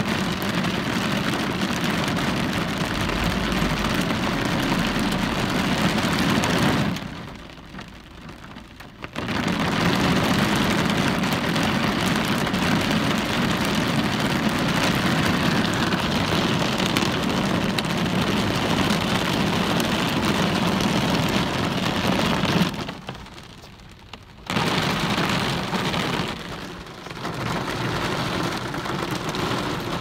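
Steady rain pattering on window glass, a dense even hiss that twice drops away abruptly for a couple of seconds before coming back.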